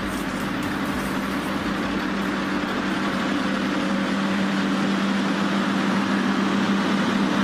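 Excavator's diesel engine running steadily with an even hum, growing gradually a little louder.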